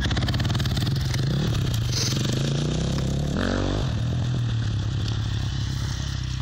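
KTM 525 SX motocross bike's single-cylinder four-stroke engine idling steadily, with one quick throttle blip about halfway through.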